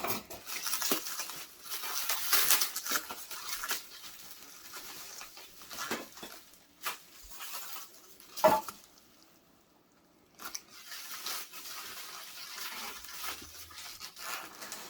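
Packaging being torn open by hand: irregular bursts of tearing and rustling, with a sharp knock about eight and a half seconds in and a short pause just before ten seconds.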